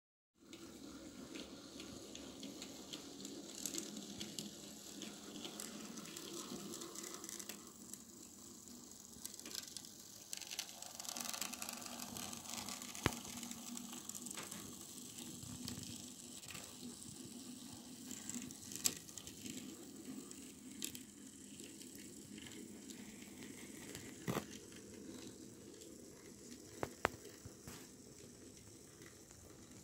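N-scale Fleischmann model of a BB 63500 diesel locomotive running on its track: a faint steady mechanical rattle of its small electric motor and wheels, with a few sharp clicks scattered through.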